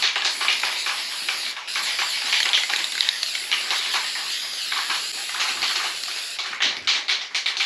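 Aerosol can of plastic adhesion promoter spraying in a steady hiss, with a brief break about one and a half seconds in and a quick run of clicks near the end.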